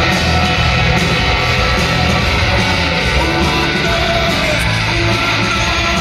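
Live rock band playing electric guitars, bass and drums, heard from the audience in an arena.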